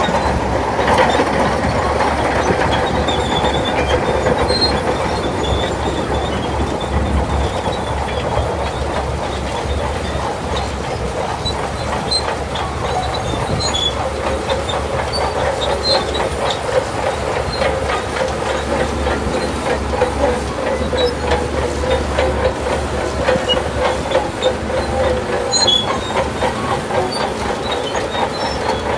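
Shantui DH17 crawler bulldozer working: the diesel engine runs with a low steady hum under a dense rattle of steel track clatter, with a steady squeal over it.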